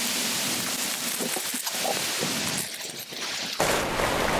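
Small handling and rustling sounds, then, about three and a half seconds in, a steady rushing hiss as dry pre-mixed concrete (Quikrete, with gravel in it) pours out of the bag into a post hole.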